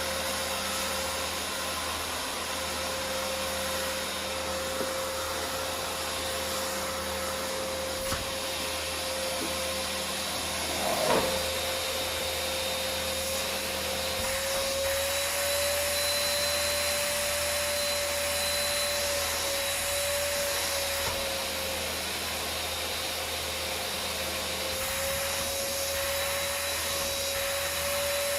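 Vacuum cleaner running steadily with a constant whine. About eleven seconds in there is a brief louder swell, and a small click comes a little before it.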